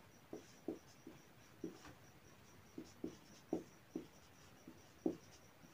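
Marker pen writing on a whiteboard: faint, short, irregular strokes, about two or three a second.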